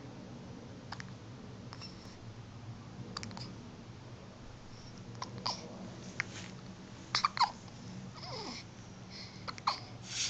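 A baby hiccupping over and over: short, sharp hics at irregular intervals, several in quick pairs, the strongest about seven seconds in. A brief falling vocal sound from the baby comes about eight seconds in.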